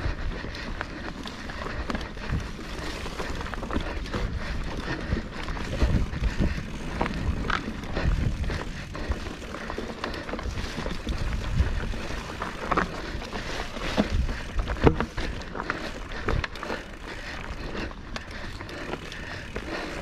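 Nukeproof Scout hardtail mountain bike rattling down a rocky trail: tyres rumbling over rock with frequent knocks and clatter from the bike, the loudest knock about fifteen seconds in.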